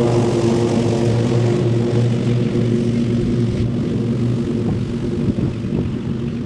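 Small engine of a lawn mower running steadily while cutting grass, easing off a little in the second half.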